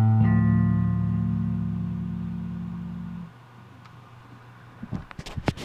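Ten-string Chapman Stick's final chord struck and left to ring, fading slowly, then damped off abruptly at about three seconds. A few soft knocks and clicks follow near the end.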